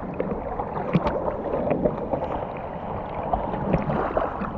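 Sea water sloshing and splashing right at the microphone of a camera held at the surface, with many short splashes as a dog swims past close by.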